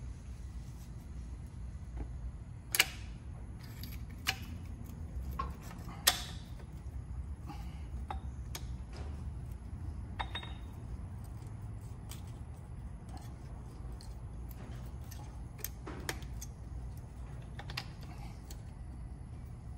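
Metal clicks and clinks from hands working the hydraulic lift control valve and its linkage on a Ford 7600 tractor, with two sharper metal clacks about three and six seconds in. A low steady hum runs underneath.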